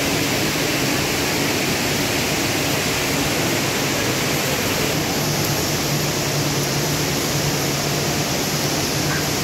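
KS-160A yarn covering machines running: a steady dense whir and hiss of many spindles turning, with a low hum that grows stronger about halfway through.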